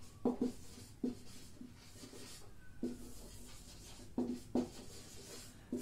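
Dry-erase marker writing on a whiteboard: a series of short scratchy strokes, one with a brief squeak near the middle.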